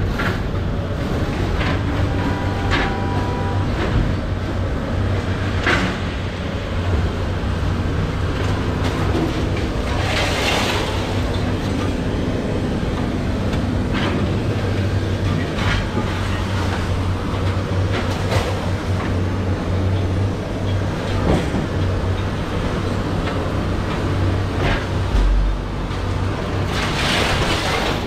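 Scrapyard machinery: a steady low engine rumble with scattered metal clanks, and two longer hissing bursts, about ten seconds in and near the end.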